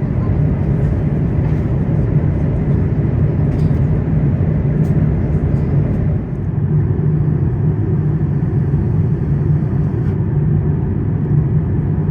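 Steady cabin noise of an Airbus A350-900 in flight: a constant low rumble of engines and rushing air with a steady hum.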